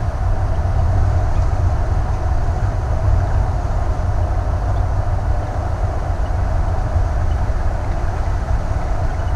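Steady cabin road noise of a Thor Vegas motorhome cruising at highway speed: a low, even rumble of engine, tyres and wind.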